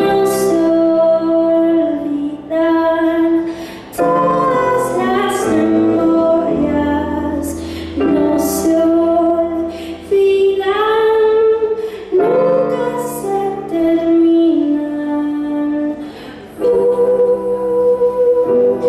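A woman singing live with instrumental accompaniment, in phrases of held, sliding notes.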